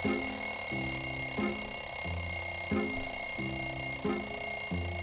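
Alarm clock going off with a repeating electronic tune: low tones step from pitch to pitch about every two-thirds of a second, and the short phrase starts over every few seconds, over a steady high whine.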